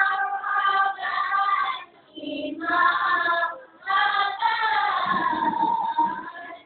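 A group of boys singing marhaban, Malay Islamic devotional praise chant, into microphones, in sung phrases with short breaks about two seconds in and again near four seconds.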